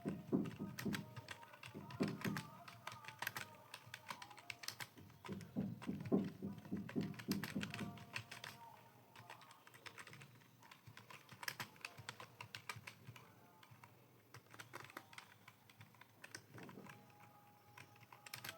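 Typing on a computer keyboard: keystrokes clicking in quick runs with brief pauses, sparser in the second half.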